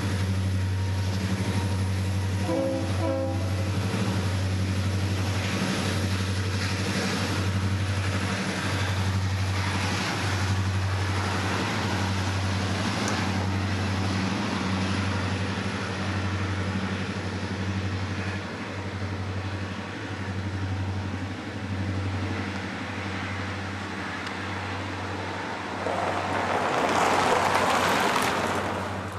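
Norfolk Southern diesel freight locomotives running past with a steady low engine drone. A short sounding of the train's chime horn comes about three seconds in. Near the end a road vehicle passes close by with a swelling rush of noise, the loudest sound of all.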